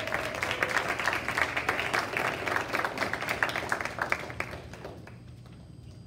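Audience of students and parents clapping, the applause dying away about five seconds in.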